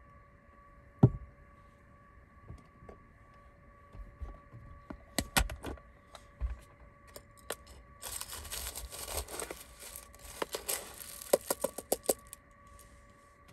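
A sharp knock, then a ceramic food bowl set down on a wooden counter with a few light knocks, followed by plastic cat-food packaging rustling and crinkling with quick sharp clicks as it is opened. A faint steady electrical hum lies underneath.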